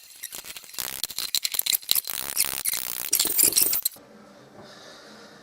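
Metal gearbox parts from a two-stroke motorcycle engine clinking and rattling against each other as they are handled, in quick irregular clicks for about four seconds, then going quiet.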